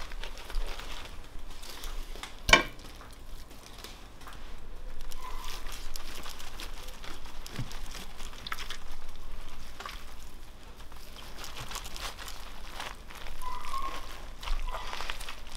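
Baking paper crinkling and a knife crunching through the crisp crust of a whole roasted leg of meat as it is carved and pulled apart, with one sharp knock a couple of seconds in.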